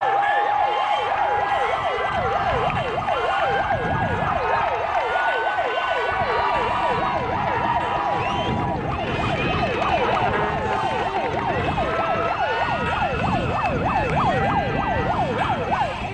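A siren yelping rapidly up and down, several sweeps a second, with a crowd yelling over it.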